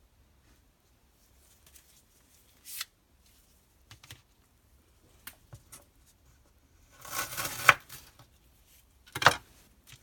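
Plastic wrapper of a Kinder Bueno bar being handled, crinkling and tearing, with a few light taps and rustles. The loudest stretch is a crackling tear about seven seconds in, followed by one more sharp crackle near the end.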